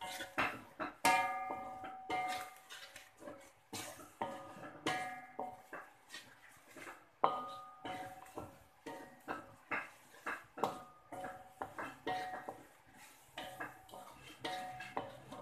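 Wooden spatula stirring a thick spice paste in a metal wok, scraping and knocking against the pan. Background music with plucked guitar-like notes plays over it.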